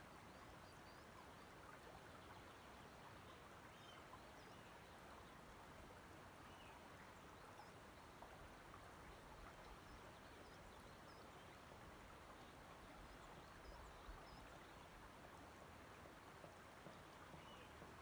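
Faint, gentle lapping and trickling of loch water over a pebbly shore, with a few faint distant bird chirps scattered through and some light soft ticks of water in the second half.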